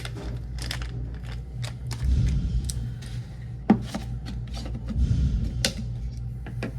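Small metal spoon clicking and scraping against a container while powder is scooped: a run of light, irregular clicks with one sharper click near the middle, over a low steady hum.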